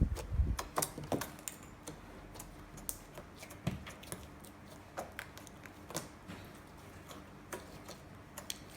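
Scattered light clicks and taps of small objects being handled, coming irregularly, a few a second at most.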